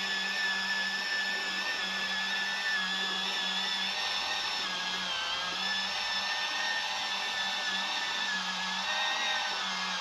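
Portable mini washing machine's small turbine motor running, churning a small load of laundry in water. A steady whine whose pitch wavers slightly.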